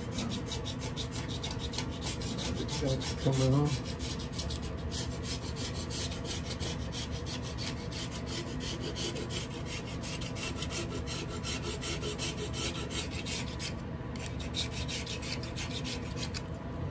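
Razor blade scraping the flange face of a Detroit Diesel 8V-53 exhaust manifold in rapid, repeated strokes, cleaning the gasket surface flat. A brief louder pitched sound cuts in about three seconds in.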